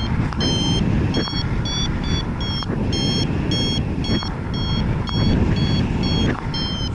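Paragliding variometer beeping in short high tones about two to three times a second, the vario's signal that the glider is climbing in lift. Underneath, a steady loud rush of wind on the microphone.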